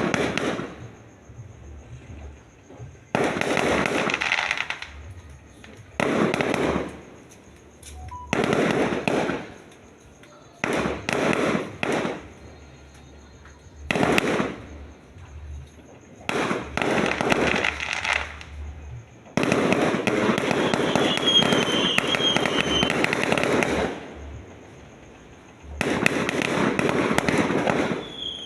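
Fireworks going off in about nine volleys of rapid bangs, each a second or two long with quieter gaps between, and a longer barrage of about five seconds in the second half.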